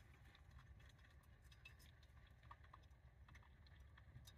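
Near silence: a faint low rumble with a few scattered soft ticks and clicks.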